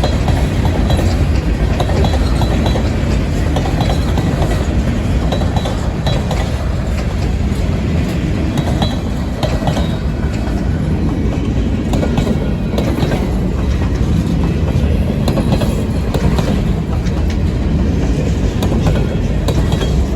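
Freight cars rolling past close by: a steady rumble of steel wheels on rail with a clickety-clack of wheels over rail joints.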